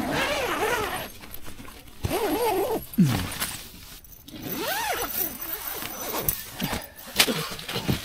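Tent door zipper being pulled open in three strokes, its buzz rising and falling in pitch with the speed of the pull, followed by rustling of nylon tent fabric and a few sharp ticks.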